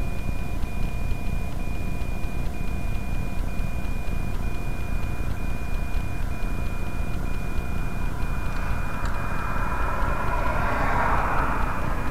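Steady low rumble in a stopped vehicle, with a faint high tone that breaks off about once a second. Near the end a passing car on the highway swells up and rushes by.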